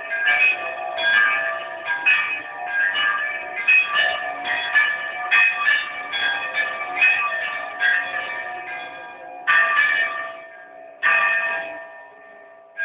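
Orthodox church bells ringing, several bells struck in quick succession at about two strokes a second and slowly fading. Near the end come three single strokes, each left ringing.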